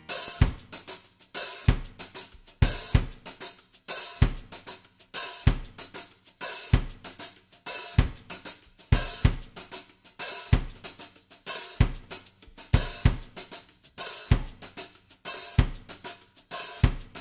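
Background music in a drums-only stretch: a drum kit keeping a steady beat, with a bass drum hit about every second and a quarter and hi-hat and cymbal strokes between.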